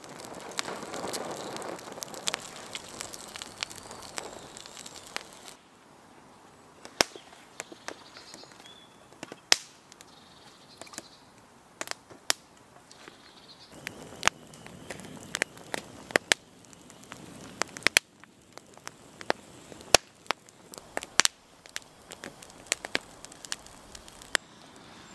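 Wood campfire of split kindling and twigs crackling, with sharp pops and snaps scattered irregularly throughout. The background is fuller for the first five seconds or so, then drops quieter while the pops continue.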